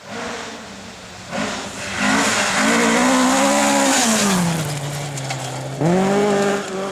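A rally car's engine working hard on a stage. Its note climbs, falls away, then picks up sharply again about six seconds in as the car accelerates.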